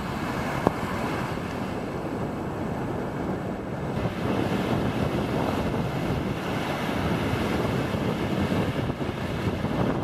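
Ocean surf breaking and washing up on a sandy beach, with wind buffeting the microphone. A single sharp click comes just under a second in.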